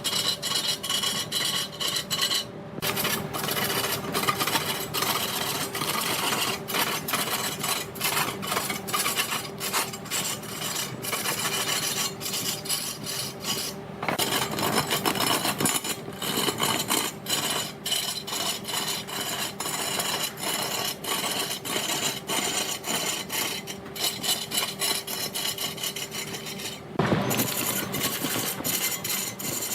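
Wood lathe turning a redwood log, a cutting tool scraping and rasping against the spinning wood over a steady motor hum. The scraping changes abruptly a few times.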